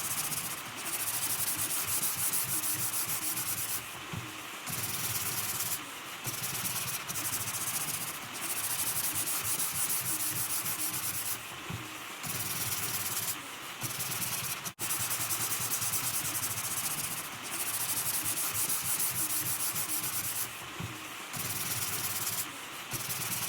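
Sandpaper rubbed by hand over wood in a series of scratchy strokes, each lasting one to three seconds, with short pauses between them.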